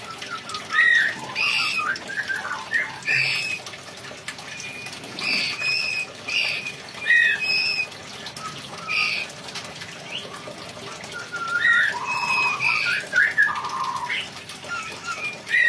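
Songbird calling and chattering: short, sharp chirps and squawks repeated every second or so, with bursts of quicker chatter, over a steady faint hiss.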